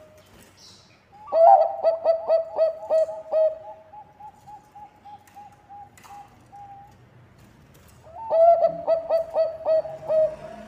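Zebra dove (perkutut bangkok) cooing: two loud bouts of quick, staccato coo notes, with a softer run of slightly higher, evenly spaced notes between them.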